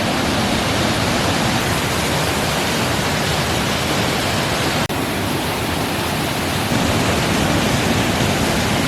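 Waterfall raging: a loud, steady, even rush of falling water, with a momentary drop about five seconds in.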